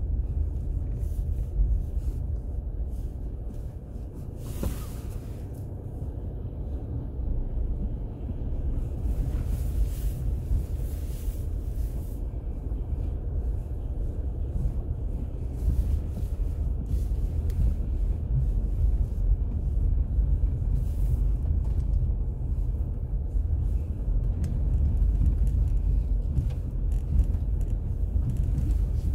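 Low, steady rumble of a car rolling slowly over a wet, potholed road, heard from inside the vehicle, with occasional short knocks.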